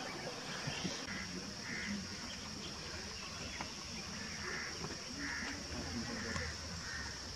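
Outdoor garden ambience: a steady high-pitched insect drone with short chirping calls, about one every half second to a second, over a low background rumble.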